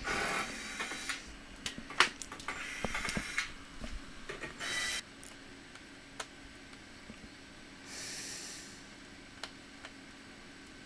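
Hands working on a laptop being taken apart: sharp clicks and taps with short scraping and rustling bursts, a softer hiss near the end.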